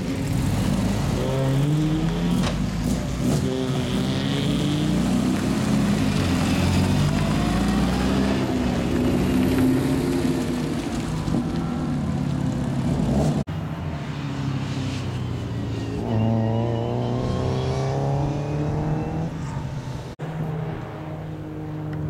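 Race car engines, an Alfa Romeo 145 Cup among them, running and revving as the cars pull away, the engine pitch rising and falling; a clear rev-up in the second half. The sound breaks off abruptly twice.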